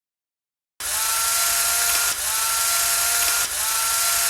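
A loud electric buzz with a strong hiss, cutting in abruptly out of dead silence about a second in and cutting off just as suddenly near the end. It comes as three identical repeats of about a second and a half, each with a faint tone that rises slightly at its start, like a looped clip.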